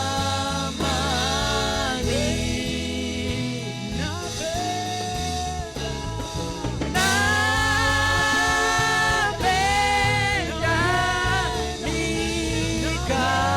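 Gospel praise music: voices singing held, bending melody lines over a band with bass and drums, swelling louder about halfway through.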